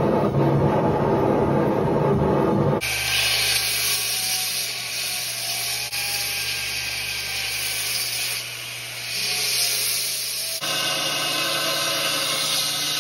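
A belt grinder grinding a steel blade: a steady high hiss of the abrasive belt on the steel over the motor's low, even hum. It starts suddenly a few seconds in, after a denser, lower-pitched sound.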